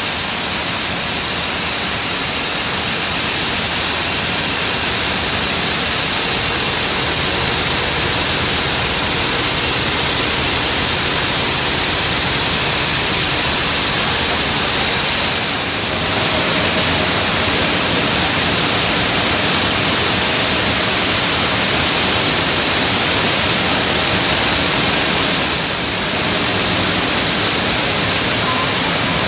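Coffee-bean sorting machinery running, giving a loud, steady rushing hiss as the beans stream through it. The sound dips briefly about halfway through and again near the end.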